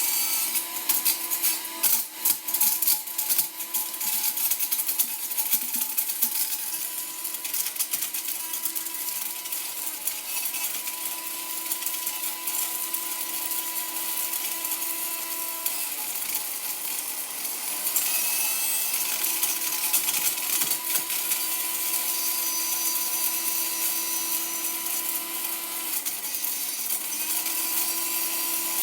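Blender motor running steadily at high speed while a plastic fidget snake toy clatters and rattles against the jar and blades. The clattering is densest in the first few seconds, and the motor pitch dips briefly near the end.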